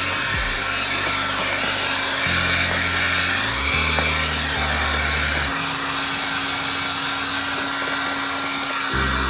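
Heat gun blowing steadily with a faint whine, heating the plastic front lip to soften it for bending. Background music with deep held bass notes plays under it.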